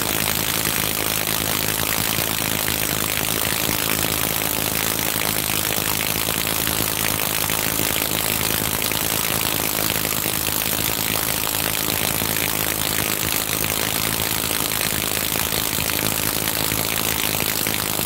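High-voltage AC plasma device with rotating electrodes running: a steady, dense hiss with a low hum beneath it.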